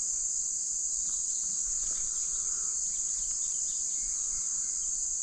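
Steady, high-pitched chorus of crickets trilling without a break.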